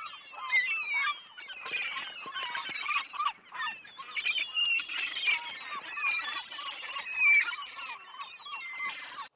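A flock of gulls calling, with many short, overlapping cries at once.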